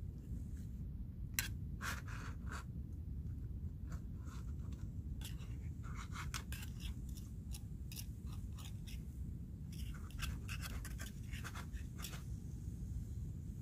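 A utensil scraping and clicking against a small metal pot while stirring food on a Trangia alcohol stove. The strokes come in irregular flurries, over a steady low rumble.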